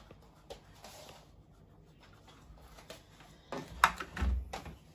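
A small plastic detergent dosing pot handled on a kitchen worktop: faint handling noises, then a sharp click and a short dull thump near the end.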